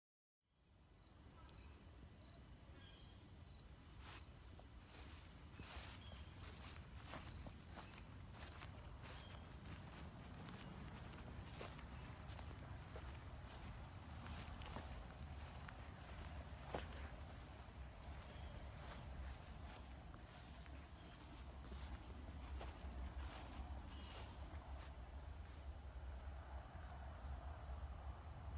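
Insect chorus: a steady high-pitched buzz, with a separate short chirp repeating about twice a second for the first nine seconds or so.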